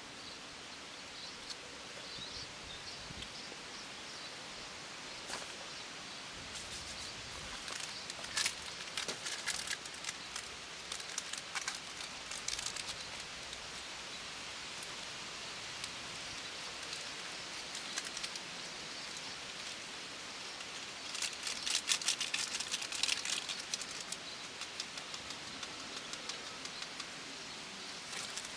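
Steady outdoor background noise, with two spells of rapid small crackles and clicks: one in the first half and a denser one about three quarters of the way in.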